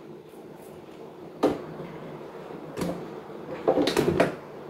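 Kitchen handling sounds around a metal pressure cooker: one sharp knock about one and a half seconds in, another near three seconds, then a short cluster of clatters around four seconds.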